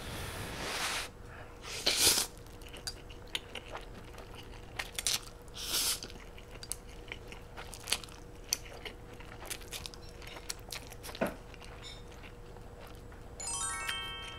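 Close-miked slurping and chewing of noodles: noisy slurps near the start and around two and six seconds, with soft wet chewing clicks between them. Near the end comes a short hummed "mmm" of approval.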